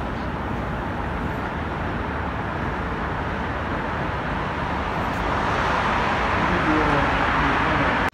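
City street traffic noise, growing louder in the last few seconds as a vehicle comes close.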